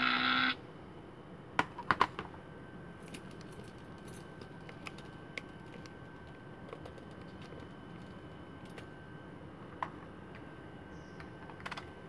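Sound effect music from a Bluetooth speaker built into a plastic toy transformation phone cuts off about half a second in. A few sharp plastic clicks and knocks follow around two seconds in, then scattered faint ticks and taps as the toy is handled, over a faint steady high tone.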